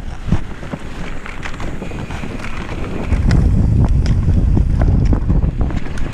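Downhill mountain bike ridden fast on a dirt forest trail: wind buffeting the camera microphone and a rolling rumble of tyres on dirt, with many small clicks and knocks as the bike rattles over roots and rocks. The rumble grows louder from about three seconds in.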